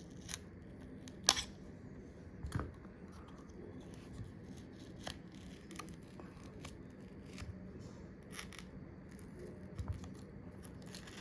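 A cutting tool cutting through the old iPhone XR housing: scattered snips and sharp clicks, the loudest a sharp snap about a second in.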